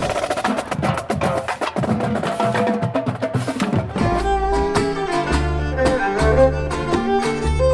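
Music: a rapid run of percussion hits, then from about four seconds in a melody of pitched instruments over strong bass notes.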